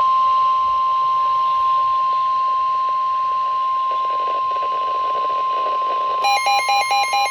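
NOAA Weather Radio 1050 Hz warning alarm tone: one loud, steady high tone over faint radio static, the signal that a warning is about to be broadcast. About six seconds in, a rapid beeping alarm of several tones, about four beeps a second, joins it.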